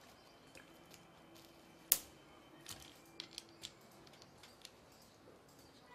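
Small metallic clicks and taps of a hex key working the clamp screws on a carbon-fibre gimbal handle clamp. There is one sharp click about two seconds in, and a few lighter clicks a second later.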